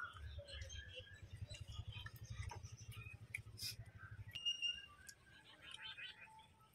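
Two people eating rice and curries with their bare hands: quiet chewing, lip smacks and small scattered clicks of fingers working food on a banana leaf.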